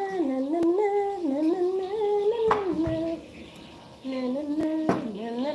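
A woman humming a tune in long held notes, pausing briefly about three seconds in, with a few light knocks in between.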